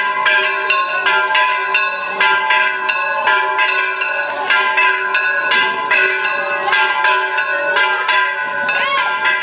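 Church bells in the tower rung rapidly, about three to four strokes a second, each stroke's ringing tones running into the next.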